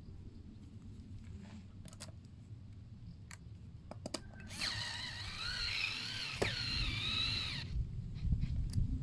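Cordless drill driving a screw into the wall plate: a motor whine of about three seconds in the middle, its pitch wavering as the screw bites, between a few clicks and knocks of handling.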